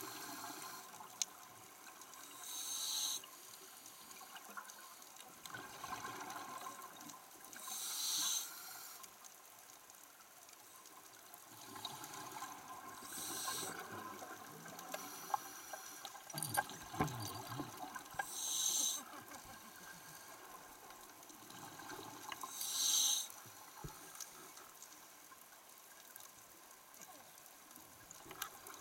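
Scuba regulator exhaust bubbles heard underwater: five short bubbling rushes, one about every five seconds, as a diver breathes out, over a faint steady underwater hiss.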